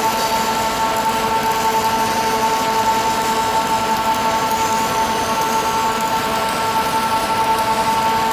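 Electric arc welding: a steady hiss with a constant high-pitched whine under it, unbroken throughout.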